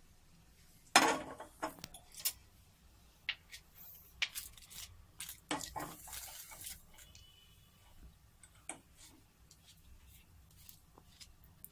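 A wooden spatula and metal spoon knocking and scraping against cookware while a thick, foamy sugar mixture is poured and spread. A sharp clatter about a second in is the loudest, followed by scattered clicks and short scrapes.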